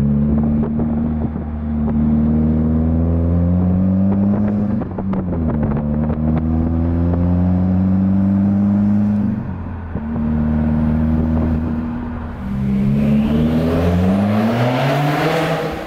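Subaru WRX STI's turbocharged flat-four, heard through a Tomei Expreme titanium single-exit exhaust, accelerating through the gears. The engine note climbs steadily and drops at a gear change about five and again about ten seconds in. Near the end it climbs steeply with a rising hiss.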